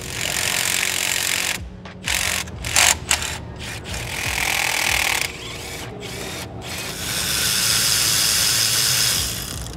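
Power tool running in three bursts of a couple of seconds each, with sharp clicks and knocks in between, as bolts are run out to free the fuel filter housing.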